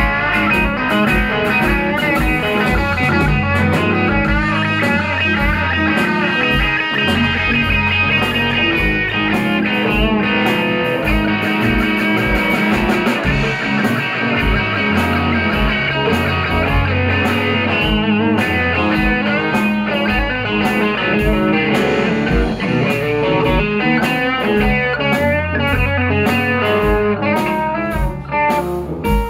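Live band playing a blues-rock instrumental, with an electric guitar leading over electric bass and a steady drum beat.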